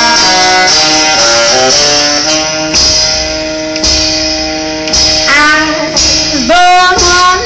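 Live small swing band playing a passage between sung lines: saxophones holding notes over upright bass and drums, with a couple of sliding notes near the end.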